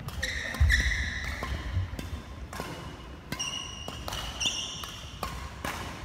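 Badminton play on an indoor court: sharp clicks of rackets striking the shuttlecock and short high squeaks of court shoes on the floor, with a heavy footfall thump about half a second in.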